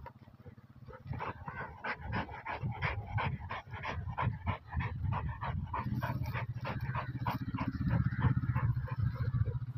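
Dog with its head down a snake burrow, whimpering and yipping in quick short bursts, about three or four a second, as it paws at the earth. A low rumble grows under it in the second half.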